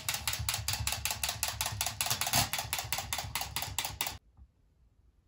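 Rapid, even mechanical clicking, about six clicks a second, that stops abruptly about four seconds in.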